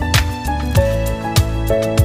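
Background music with a steady beat: a deep drum hit about every 0.6 seconds under held melodic notes.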